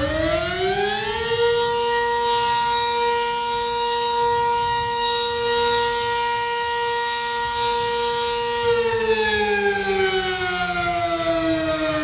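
Lebanon's civil defense siren sounding one long wail. It finishes rising in pitch about a second in, holds a steady tone, then slowly falls in pitch over the last three seconds.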